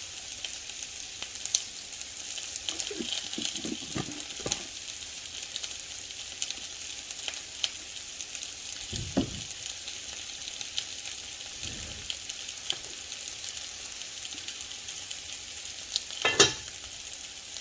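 Chicken frying in oil in a pan with a steady sizzle, broken by a few soft knocks and a sharp clatter near the end.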